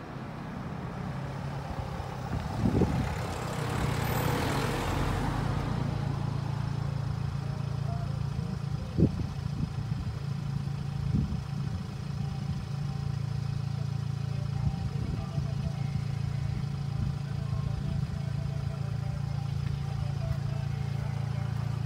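Vehicle engine idling, a steady low hum. A brief rush of noise comes a few seconds in, and there are a couple of faint knocks.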